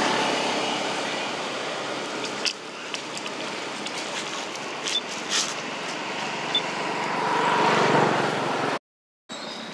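Outdoor road noise with a motor vehicle passing, its sound swelling about eight seconds in, with a few light clicks. It cuts out abruptly for a moment near the end.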